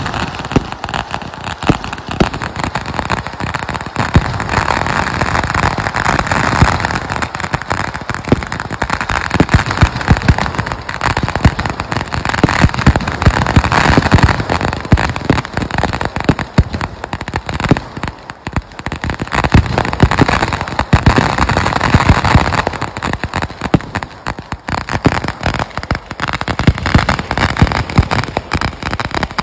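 Fireworks display: a dense, continuous crackling and popping of bursting shells and ground-fired effects, with many sharp bangs, easing briefly a little past halfway before building again.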